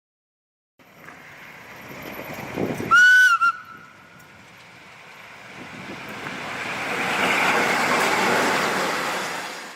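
A train sounds its horn in one short blast with a brief second toot, then its rumble builds to a peak and fades as it passes.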